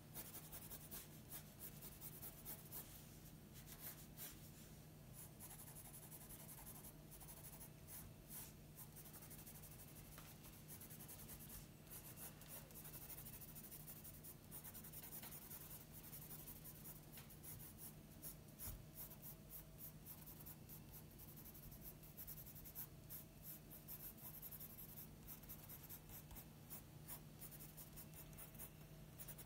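Graphite pencil scratching across paper in many short, quick hatching strokes, faint and irregular, as fur stripes are shaded in.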